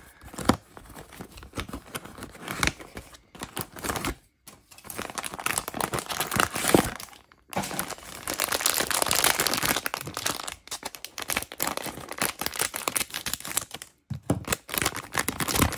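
Crinkling and rustling of a metallic foil blind bag, handled and squeezed by hand after being taken out of its cardboard box, in irregular spells with short pauses and a longer unbroken stretch of crinkling in the middle.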